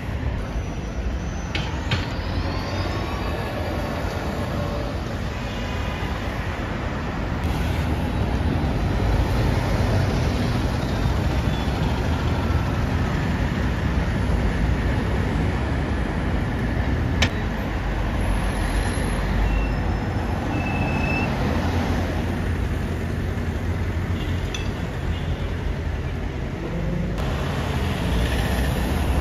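Double-decker buses and other road traffic passing, with a steady low engine drone and tyre noise that grows louder after a few seconds. A few brief high squeals come near the start, and there is one sharp click about halfway.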